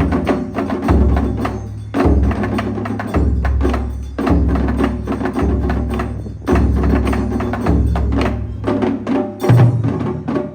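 Taiko drums (nagado-daiko) struck with sticks in a driving rhythm: deep booms about once a second under rapid, sharper hits. Near the end the deepest booms stop and a higher-pitched drum takes over.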